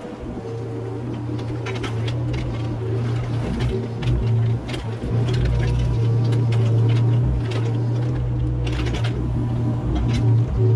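Mini excavator engine running steadily at work, with scattered knocks and clanks from the machine and its bucket.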